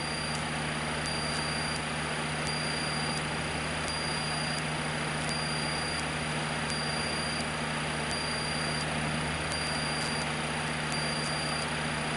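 Cessna 152's Lycoming O-235 four-cylinder engine and propeller droning steadily in level cruise, heard from inside the cabin.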